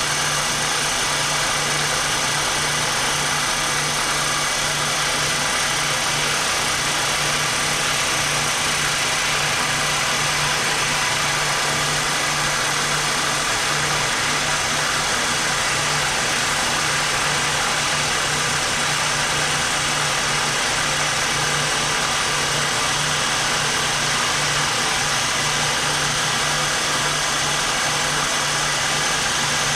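Power cutting tool running steadily with a constant hum while it cuts through a 3D-printed plastic part, the friction melting the plastic.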